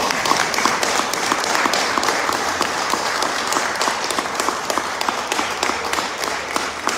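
Audience applauding steadily: many hands clapping at once, holding an even level.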